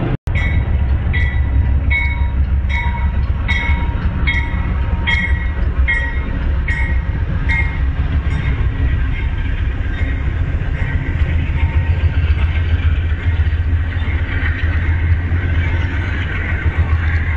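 Amtrak GE P42DC diesel locomotive pulling a passenger train past, its bell ringing a little more than once a second for the first eight seconds or so. Under the bell runs the steady low rumble of the diesel engine and the rolling cars.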